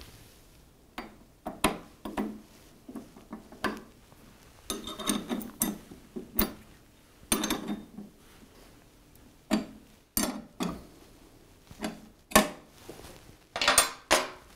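Metal wrenches clicking and clinking on a 10 mm bolt and lock nut as the nut is tightened, in a string of separate clicks with a few short rattling bursts.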